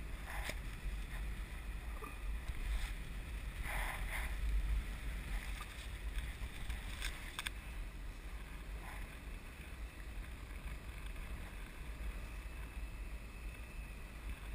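Wind buffeting the microphone of a camera carried aloft under a parasail: a steady low rumble with a few brief louder rushes.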